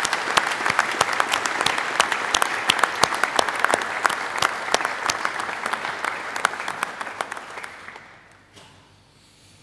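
Audience applauding, with many hands clapping at once; the applause dies away about eight seconds in.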